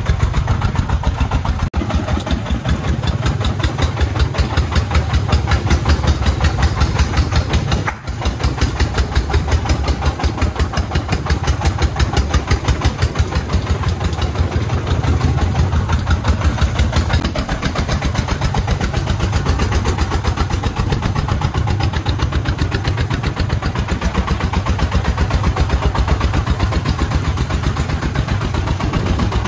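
Single-cylinder 24-horsepower diesel engine of a three-wheeled công nông truck chugging steadily under load as it hauls a full bed of sand, its rapid even firing beats loud and close. The level dips briefly about eight seconds in.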